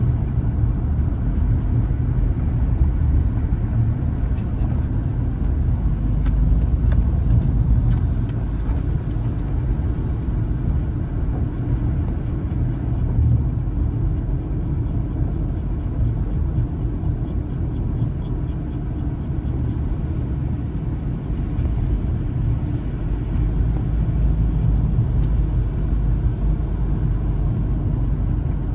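A car driving along a road, probably a 2010 Honda Element: a steady low rumble of engine and tyres that keeps up throughout without any clear change.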